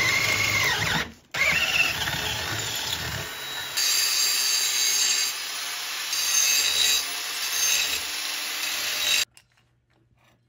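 Cordless drill boring through a stack of steel brackets clamped in a vise, its motor whine stopping briefly about a second in and spinning up again. About four seconds in an angle grinder takes over, grinding the steel, until everything stops about nine seconds in.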